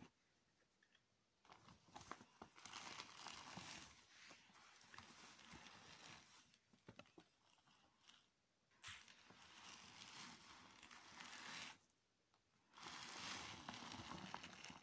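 A brush rubbing and rustling across a glossy woven plastic shopping bag. It comes in three spells of strokes with short pauses between them, smoothing the bag's creases.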